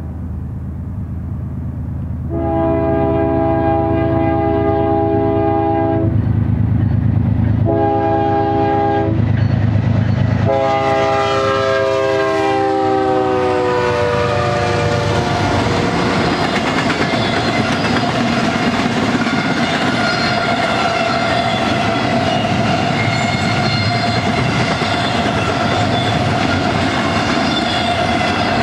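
BNSF GE ES44DC freight locomotive's air horn sounding long, short, long, the last blast dropping in pitch as the locomotive passes. Then the double-stack container train rolling by, wheels clattering over the rail joints.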